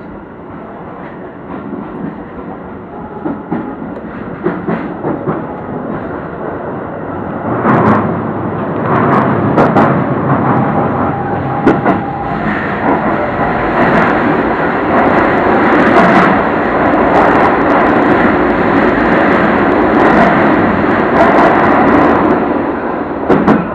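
Keio Line electric train running, heard from just behind the driver's cab: steady rumble with sharp clicks from the wheels over rail joints. The sound gets much louder about eight seconds in as the train runs into a tunnel.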